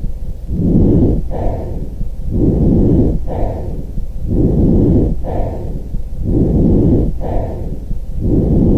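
Lung sounds heard through a stethoscope: a regular inhale and exhale repeating about every two seconds, each breath phase about a second long and separated by a brief pause.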